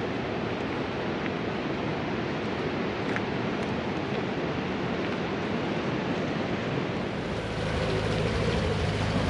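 A steady rushing hiss, then about seven seconds in the low, steady drone of an old UAZ off-road truck's engine comes in and grows louder.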